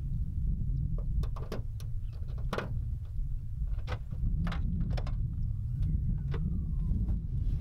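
Scattered clicks and knocks of a key working the rear tailgate lock of a Toyota Land Cruiser 105 series, then the tailgate being opened, over a steady low rumble of wind on the microphone.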